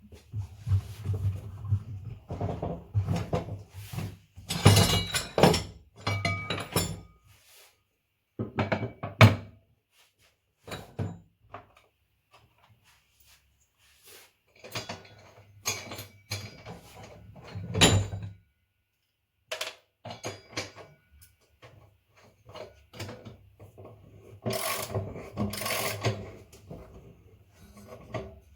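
Irregular knocks, clicks and clatter of parts and tools being handled, in uneven bursts with short quiet gaps, over a low hum.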